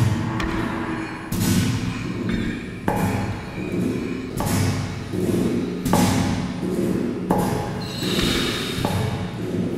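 Found-object percussion in a noise-music piece: a sharp hit about every second and a half, each followed by low, ringing pitched tones.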